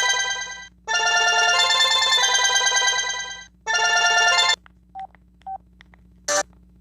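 Sanyo VI-2300 phone's speaker playing electronic ringtone melodies one after another: one ends just under a second in, a second plays for about three seconds, and a third is cut off after about a second. Then come two faint short beeps and a sharp click.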